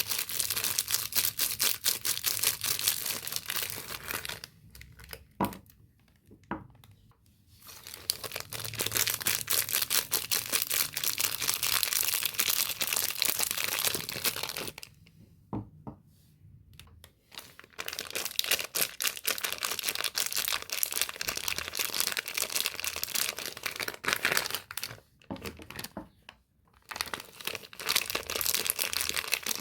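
Soap bar packaging being torn open and crinkled by hand: a dense run of crackling and tearing, broken by three brief lulls.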